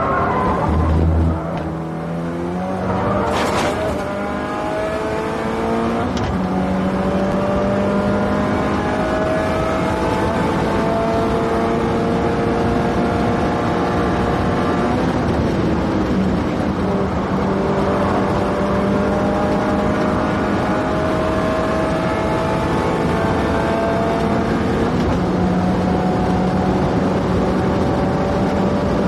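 Subaru Impreza WRX STI's turbocharged flat-four engine driven hard on a race track: a few quick rev changes in the first four seconds, then long, slow climbs in engine pitch under full throttle at high speed.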